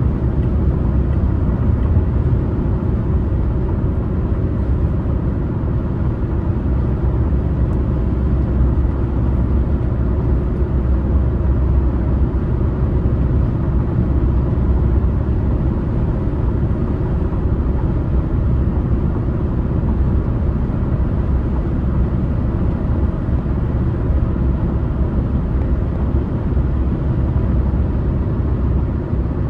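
A car driving at steady speed: a constant low rumble of tyres and engine, with no change in speed.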